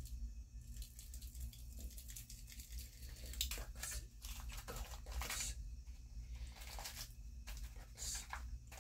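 Pop Rocks candy packet crinkling and tearing close to the microphone, in irregular rustles, heaviest about halfway through and again near the end.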